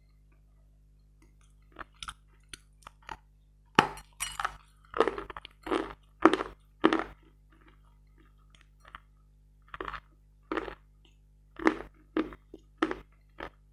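Dry, dense, grainy Metel edible chalk being bitten and crunched close to the microphone: short crisp crunches, a few light ones at first, then quick runs from about four seconds in, a pause near the middle, and another run after it.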